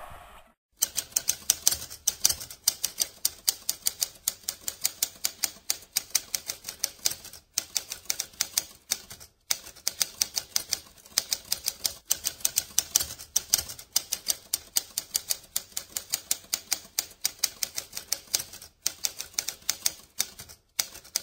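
Typewriter keys striking in a quick, steady run of clacks, broken by short pauses every few seconds.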